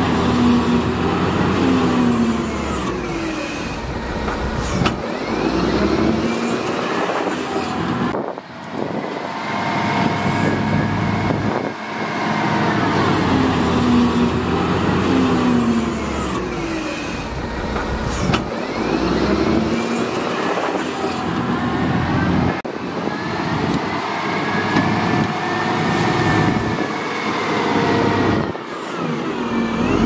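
Wheel loader's diesel engine working under load as it pushes and scoops sand, revving up and falling back again and again every few seconds.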